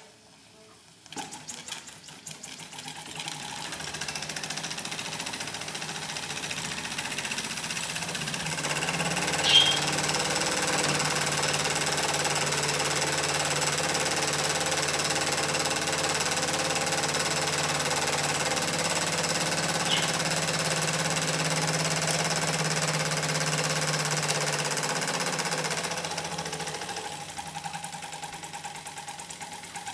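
Cyldon 13-2 toy steam engine running fast with a rapid mechanical beat while it drives a stepper-motor generator by belt. It picks up speed over the first several seconds, runs steadily, and slows in the last few seconds, with a sharp click about ten seconds in. The owner says the valve timing is out a bit, so the engine does not run well.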